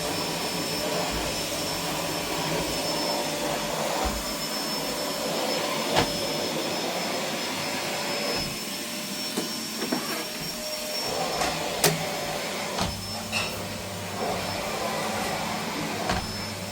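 Steady rushing noise with a faint high whine running through it, broken by a few sharp clicks or knocks.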